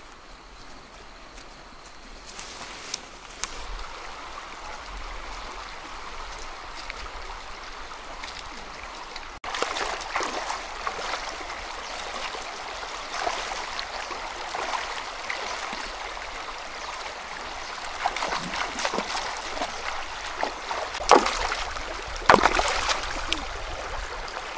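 Shallow river water running over stones. It is faint at first and louder from about nine seconds in. Hands splashing and shifting stones in the shallows make sharp splashes near the end.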